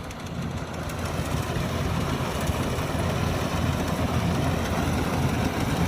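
Combine harvester engine running steadily, growing louder over the first couple of seconds as it comes nearer.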